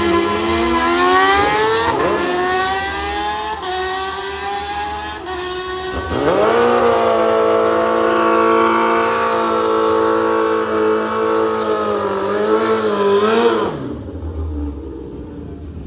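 Drag-racing car engines revving, their pitch climbing. About six seconds in, an engine jumps to high revs and holds them steadily for several seconds, then drops away near the end.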